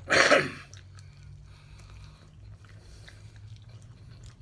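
Close-miked eating of chicken wings: one loud, short, noisy burst right at the start, then quiet biting and chewing clicks over a low steady hum.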